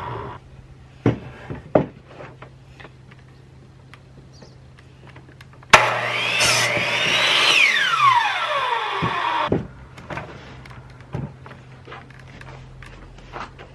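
Cordless drill motor spinning up with a rising whine, then winding down over about four seconds. A few scattered wooden knocks and taps come before and after it.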